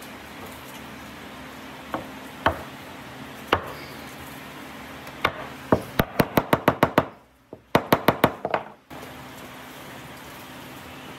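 Claw hammer tapping on a pine joint to seat two curved segments together. There are a few separate knocks, then two quick runs of taps at about six a second.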